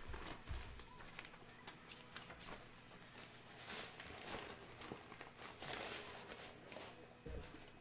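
Faint handling noise: light knocks, taps and rustles of packaging and small objects being moved about on a desk.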